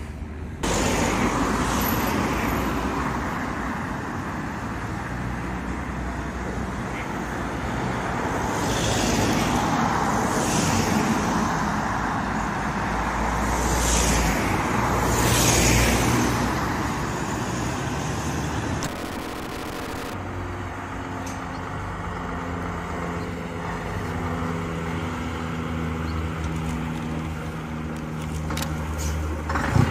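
Trams running on street track with surrounding traffic noise, rising and falling as they pass. Then a vintage half-cab double-deck bus's diesel engine running with a steady low drone.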